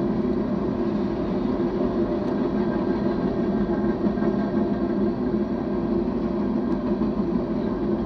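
BNSF manifest freight train passing, a steady, unchanging rumble.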